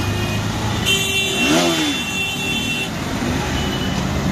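Traffic heard from inside a moving auto-rickshaw: the rickshaw's engine running under steady road noise. A vehicle horn sounds for about two seconds, starting about a second in.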